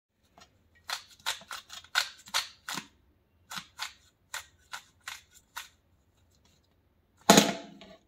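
Plastic 3x3 speedcube clicking as its layers are turned in two quick runs of finger turns while a permutation (PLL) algorithm is performed. Near the end there is one louder knock as the cube is set down on the table.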